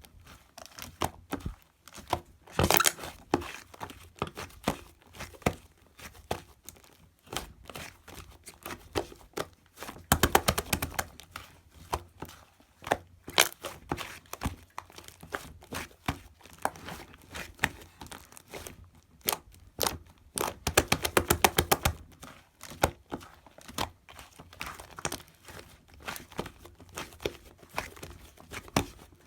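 Shaving foam being squished and worked, a run of small sticky crackles and pops, with thicker flurries of crackling about three seconds in, around ten seconds and around twenty-one seconds.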